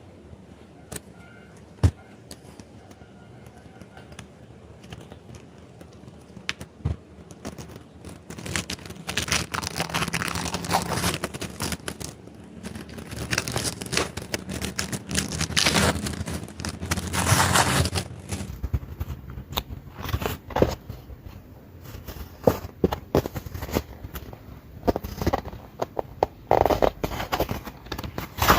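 Packaging being handled and unwrapped: plastic wrap crinkling and tearing, with scrapes and sharp clicks, densest through the middle and more broken up near the end.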